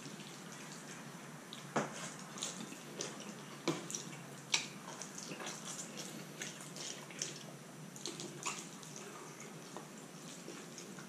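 Wet mouth sounds of a person eating spicy instant noodles with chopsticks: chewing and slurping, with short sharp clicks, the loudest about two, four and four and a half seconds in.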